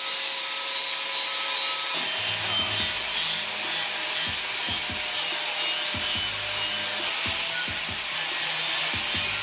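Steady abrasive hiss of a power tool working metal, as in grinding or sanding to clean up cut parts. About two seconds in, music with a pulsing low beat comes in underneath.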